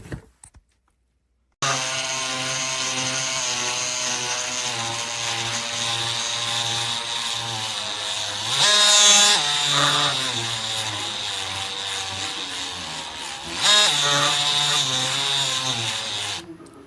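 DEWALT 20V MAX XR cordless oscillating multi-tool running with a steady buzz. Twice it briefly rises in pitch and gets louder, then settles back. It stops shortly before the end.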